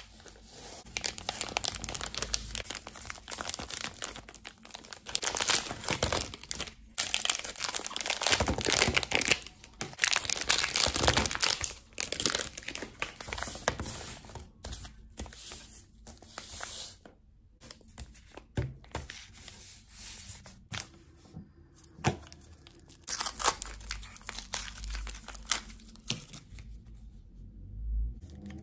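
Plastic wrappers of Toybox surprise toy packets being torn open and crinkled by hand, in irregular stretches with a few sharp clicks.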